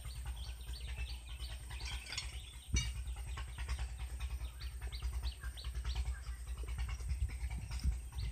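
Small birds chirping, short high calls repeating two or three times a second over a low rumble, with a single sharp knock about three seconds in.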